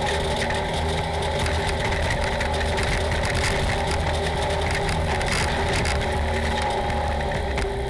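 Polaris RZR side-by-side engine running at a steady pitch while driving over a dirt trail, heard from inside the cab, with short knocks and rattles from the chassis over the bumps.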